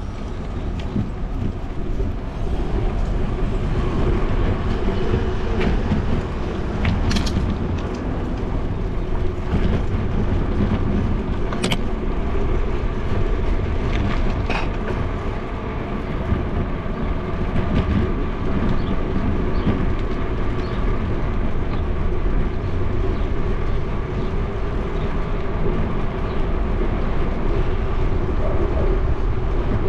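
Riding noise of a bicycle on a paved bike lane: a steady low rumble with a faint steady hum over it, and a few sharp clicks about seven, twelve and fifteen seconds in.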